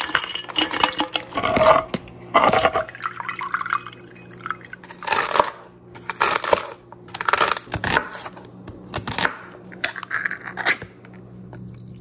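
A series of short kitchen sounds: cashews clattering out of a can into a measuring cup, then liquids being poured into a small bowl and a measuring cup, in separate bursts a second or so apart.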